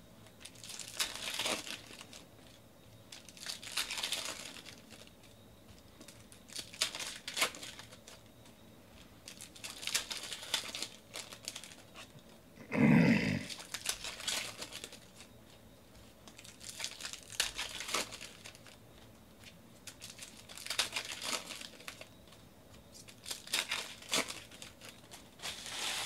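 Foil trading-card pack wrappers being torn open and crinkled in repeated bursts every few seconds, with quieter card handling between them. About halfway through comes one short, louder, lower sound.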